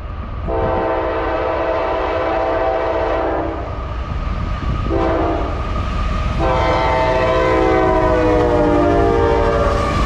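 CSX freight locomotive's air horn sounding the grade-crossing signal: a long blast of about three seconds, a short blast, then a long blast that dips in pitch near the end as the locomotive draws level. The low rumble of the train runs underneath.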